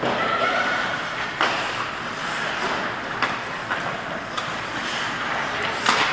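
Ice hockey play: skates scraping across the ice in a steady hiss, broken by several sharp clacks of sticks and puck hitting.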